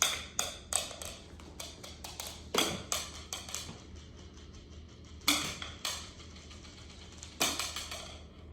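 Hard plastic toy pieces clicking and clattering against each other in irregular clusters of sharp knocks.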